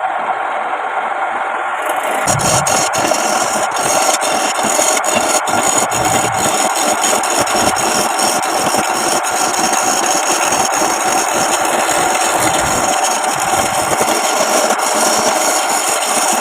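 Wood lathe running while a cutting tool or abrasive works the spinning wooden blank, a steady scraping and rasping with frequent small ticks that gets sharper and brighter about two seconds in.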